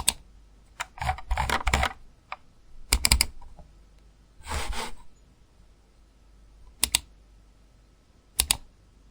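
Computer mouse button clicks, mostly in quick press-and-release pairs, with a fast run of clicks about a second in and a short clattering cluster around three seconds, then single pairs spaced a second or more apart.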